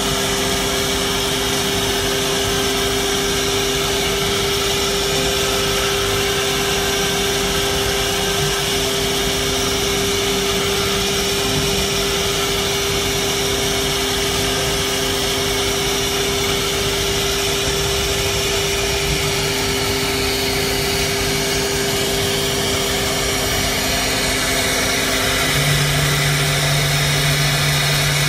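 Woodmaster four-head CNC router at work, its spindles running with a steady whine while the bits carve grooves into a wooden panel, over a constant hiss. A lower hum joins near the end.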